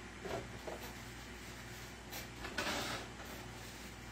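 Quiet kitchen handling: a couple of soft knocks early, then a brief rustle of paper about two and a half seconds in, as a paper towel is handled for wiping a skillet. A faint steady hum runs underneath.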